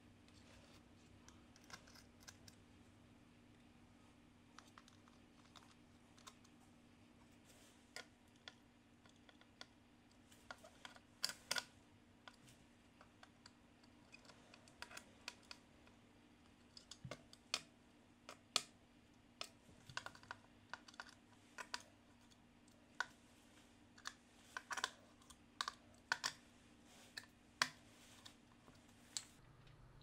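Small sharp clicks and taps of a screwdriver and nut driver on small screws and nuts in the steel backplate of an IBM Model M keyboard, as the fasteners are tightened. The clicks come irregularly and grow more frequent from about ten seconds in, over a faint steady hum.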